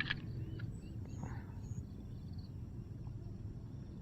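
Outdoor ambience by the water: a steady low rumble with faint, scattered high-pitched chirps, some repeated in quick short runs, and a short click at the very start.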